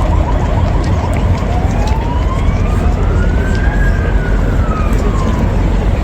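Steady rain hiss with an emergency-vehicle siren wailing once, rising in pitch for about two seconds and then falling away.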